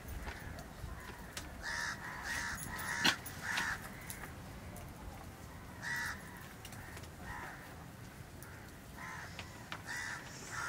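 A bird calling in a string of short repeated calls, several in quick succession about two to four seconds in, then spaced a second or more apart. A single sharp click comes just after three seconds in.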